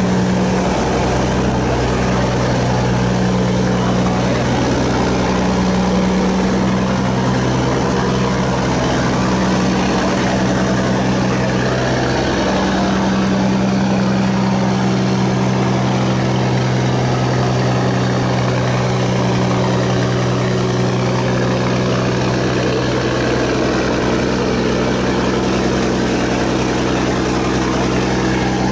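Sand barge's diesel engine running steadily at close range with a deep, even hum, over the rush of churning water along the hull.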